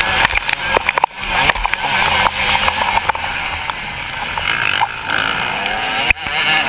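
Motocross bike engine revving hard, its pitch rising and falling with the throttle, heard from a camera worn by the rider, with wind noise and other motocross bikes close by; the sound dips sharply for a moment about a second in and again near the end.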